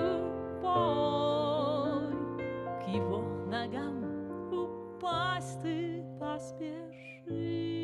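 Slow instrumental accompaniment to a Christian worship song, with a woman's voice singing a few wordless held notes with vibrato.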